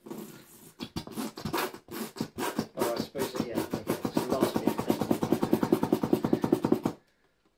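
Nearly empty Heinz tomato ketchup squeeze bottle held upside down and squeezed, spluttering as air and sauce spurt out of the nozzle together. Irregular splutters at first, then a fast even run of spurts from about three seconds in, stopping abruptly near the end.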